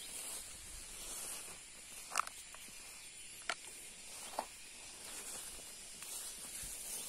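Rural field ambience: a steady high-pitched insect drone, with three brief sharp sounds about two, three and a half and four and a half seconds in.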